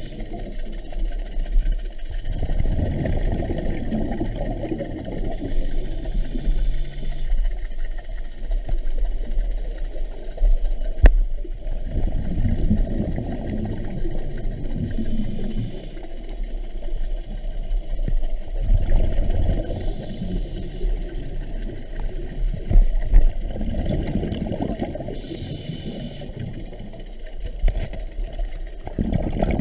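Scuba diver breathing through a regulator underwater, recorded through the camera housing: bursts of rumbling, bubbling exhalation with short regulator hisses, repeating about every five seconds. A single sharp click about eleven seconds in.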